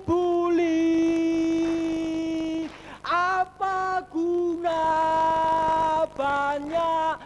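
Background music: a single voice singing a slow melody with long held notes, one held for over two seconds near the start, with short breaks between phrases.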